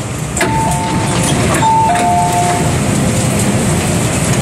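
MTR M-train door chime sounding a two-note ding-dong, higher note then lower, twice, as the doors open. Steady low train noise runs underneath.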